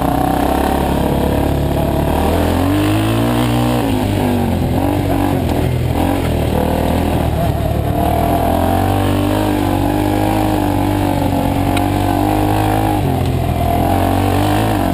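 Dirt bike engine running under load, its pitch climbing and falling several times as the throttle is worked, then holding steady for several seconds past the middle before dropping near the end.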